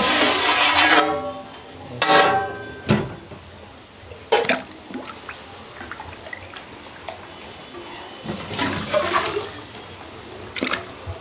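A large aluminium pot lid clanging and ringing as it is lifted off and set against a stack of metal lids, with several knocks in the first few seconds. Then a metal ladle stirring and pouring chole gravy in the big pot, the liquid sloshing.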